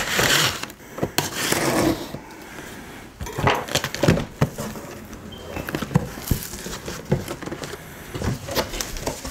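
Cardboard box being opened by hand: the flaps scrape and rub against each other and the packing inside, with scattered knocks and taps on the cardboard. The longest rubbing comes in the first two seconds.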